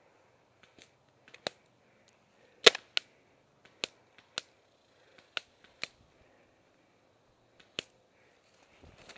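Paintball guns firing single shots: about nine sharp pops spaced unevenly, the loudest a little under three seconds in.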